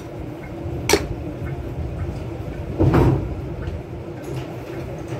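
Kitchen handling noises over a steady low hum: a sharp click about a second in and a dull knock about three seconds in, as containers and utensils are handled at a counter.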